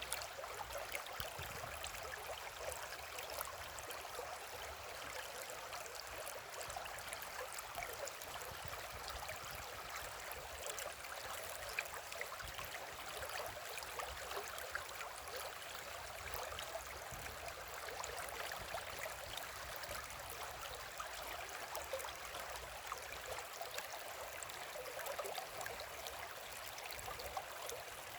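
River water flowing: a steady rush with many small splashes and gurgles.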